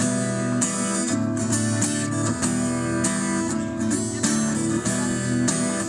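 Instrumental break of a rock song: a strummed guitar playing chords with a band behind it.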